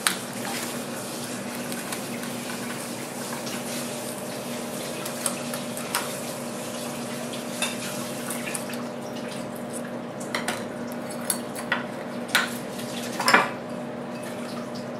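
Kitchen scissors cutting open spiny sea urchins on a wooden cutting board: irregular snips, clicks and clinks of metal on shell and board, the loudest cluster shortly before the end, over a steady low hum.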